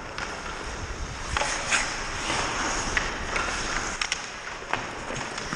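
Ice hockey skates scraping and carving on rink ice, with several short sharp clicks of sticks and puck.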